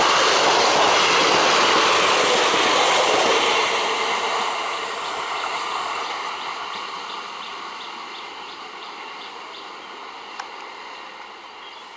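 A passenger train running past at speed, its wheels clattering over the rail joints. About four seconds in the noise starts to fade steadily as the train draws away, leaving a faint regular ticking of wheels on the track.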